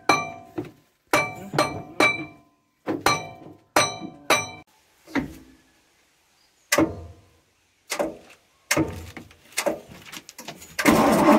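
Sharp metal-on-metal knocks with a ringing clink, coming in quick groups of two or three: the stuck starter motor of a long-parked Ashok Leyland bus being struck lightly to free it. The knocks turn sparser and duller in the second half. Near the end the bus's diesel engine starts and runs loudly.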